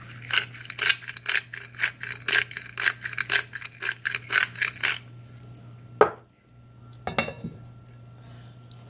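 Hand pepper mill grinding black pepper: a quick rasping crunch about four times a second for some five seconds. Then two separate knocks.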